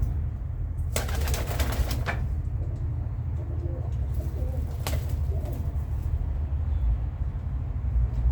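Pigeon wings flapping in a rapid burst lasting about a second, over a steady low rumble, with a single sharp click a few seconds later.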